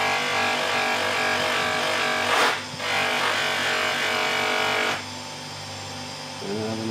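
Polishing wheel of a sharpening machine running, with a chisel held against it on polishing compound: the contact adds a louder whining rub for about five seconds, broken briefly around halfway, and then only the motor's steady hum remains. A short rising sound comes near the end.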